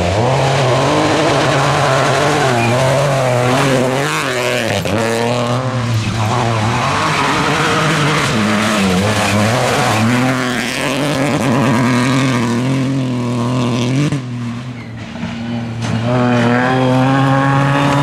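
Rally cars at full speed on a gravel stage, engines revving hard and dropping in pitch at gear changes and braking, again and again, with gravel spraying from the tyres. The sound dips briefly about fourteen seconds in, then another car's engine climbs through the revs.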